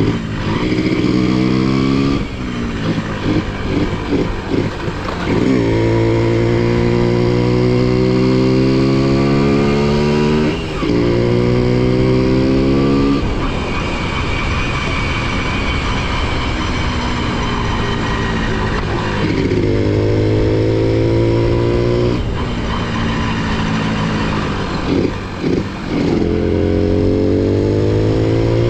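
Honda CDI-100 100cc motorcycle engine and exhaust running under load. Its revs climb steadily for several seconds at a time, then fall back with a brief dip, several times over.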